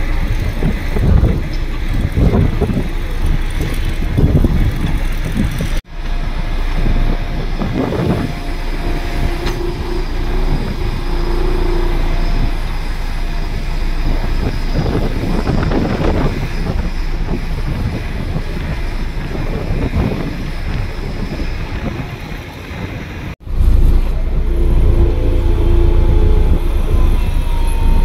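Heavy construction machinery at work: large diesel engines running under load, rising and falling irregularly. The sound breaks off abruptly twice, about six seconds in and again about five seconds before the end, where the video cuts to another shot.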